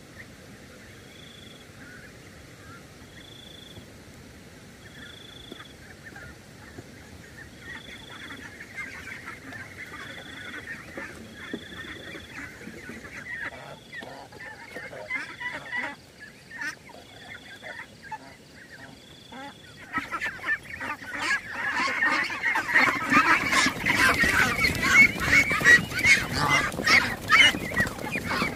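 A flock of domestic ducks quacking. Scattered calls build into a loud, dense clamour of many birds from about two-thirds of the way in.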